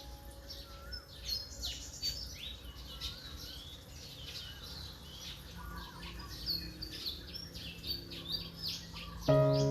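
Birds chirping and twittering steadily as part of a relaxing background soundtrack. Soft music is faint underneath, and a loud sustained chord comes in near the end.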